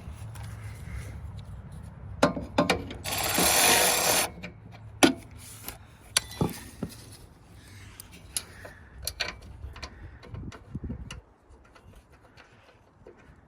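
Hand tools working on bolts, with scattered metallic clicks and knocks and a rasping burst lasting about a second, about three seconds in. A steady low hum runs underneath and stops near the end.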